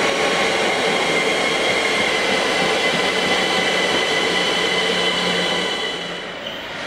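ÖBB Cityjet (Siemens Desiro ML) electric multiple unit running past, its traction electrics giving a steady high whine over the rumble of wheels on rail. The sound drops away about six seconds in.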